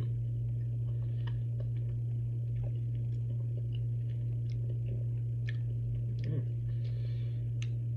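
A person chewing a soft, cream-filled, cinnamon-coated marshmallow with the mouth closed: faint, scattered wet mouth clicks over a steady low hum.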